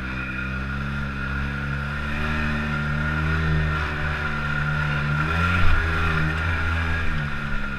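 An engine runs under way on a ride, its pitch creeping up through the middle, peaking about five and a half seconds in, then easing back, with a steady high whine over it.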